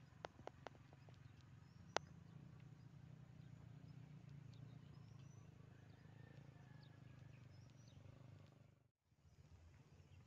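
Faint outdoor background: a low steady hum, a few sharp clicks in the first two seconds, and faint high bird chirps. The sound drops out for a moment near the end.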